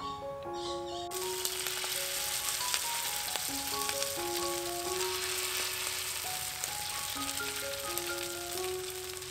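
Hot oil sizzling in a steel wok as the food hits it. The frying hiss starts suddenly about a second in and then holds steady.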